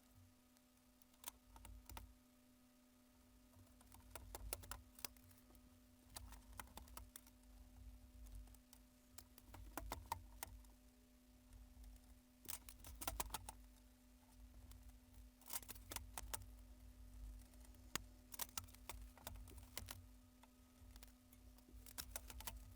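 Faint, scattered clicks and light taps from handling the TV's backlight parts, coming in irregular clusters, over a faint steady hum.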